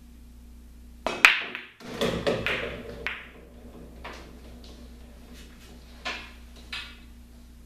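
Pool break shot: the cue strikes the cue ball, which smashes into a nine-ball rack about a second in, followed by a quick run of ball-on-ball and rail clacks as the rack scatters. Two lighter clacks follow near the end as the balls come to rest.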